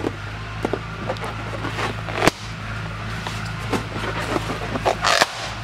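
Rubber balloons being grabbed and knocked about in a scuffle: scattered clicks and squeaks, a sharp snap about two seconds in, and a short noisy burst near the end, over a steady low hum.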